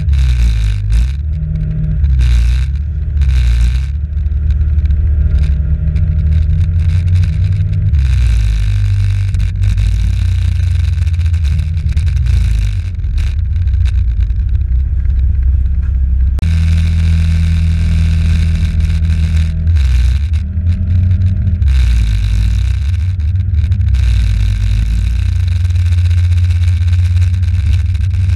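Moped engine running through traffic, its speed rising and falling every few seconds, under steady wind rumble on the microphone.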